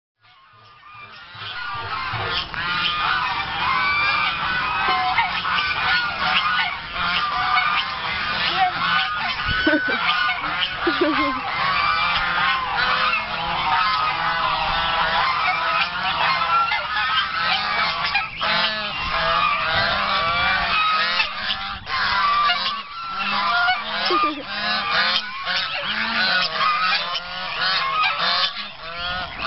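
A flock of white domestic geese honking all at once, many calls overlapping without a break, as they crowd around to be fed; the noise builds up over the first two seconds.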